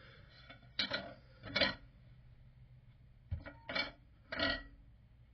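About five short clinks and knocks of small hard parts being handled, two about a second in and three more close together past the middle.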